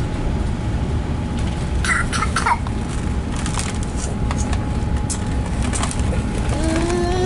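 Steady low rumble of a Renfe AVE high-speed train heard from inside the passenger carriage, with a toddler's brief squeals about two seconds in and a few light clicks. Near the end a whine begins and rises slowly in pitch, as the train picks up speed.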